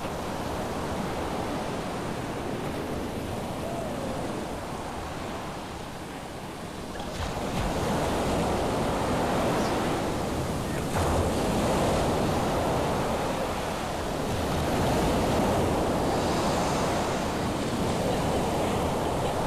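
Ocean surf breaking and washing on a beach, a steady rush of noise with some wind. It grows louder about seven seconds in.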